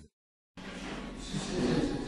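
About half a second of silence, then restaurant dining-room hubbub: indistinct chatter from other diners over a steady room hum, the voices growing a little louder in the second half.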